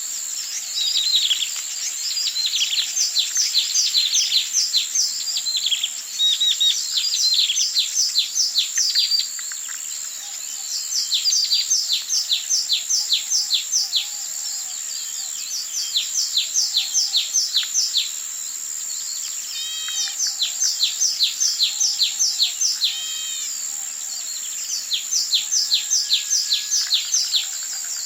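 Songbirds singing at dawn: one bird repeats phrases of rapid, high, falling notes, each a few seconds long with short pauses between, while other birds call now and then. A steady high-pitched whine runs underneath.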